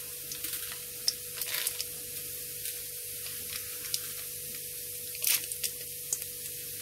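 Hot oil sizzling in a pan as urad dal, chana dal, cumin and mustard seeds fry in it for a tempering, with a steady hiss and scattered sharp pops and crackles, the loudest about five seconds in.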